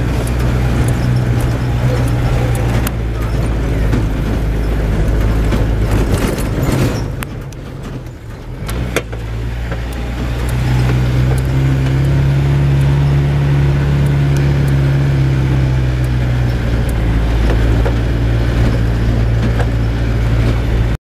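Car engine and tyres on a rough dirt road, heard from inside the cabin. The engine eases off briefly about seven seconds in, with a few knocks, then its note rises and holds as it pulls again.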